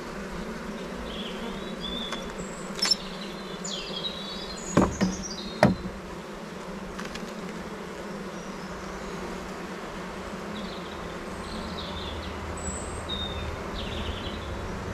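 Steady hum of many honeybees buzzing around an opened, crowded hive during a frame inspection. A few sharp clicks or knocks sound around 3 and 5 seconds in.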